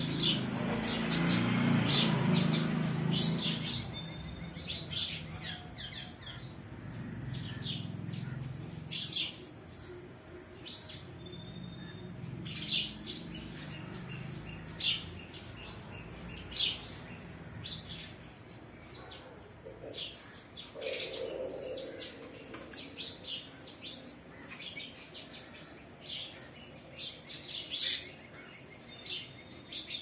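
Small birds chirping over and over, many short, quick calls scattered throughout, with a soft low background sound that is strongest in the first few seconds.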